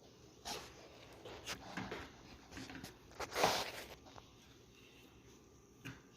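Faint handling noises of Play-Doh being rolled and fitted into a plastic toy press: a few soft rustles and taps, with one louder brief rustle about three and a half seconds in.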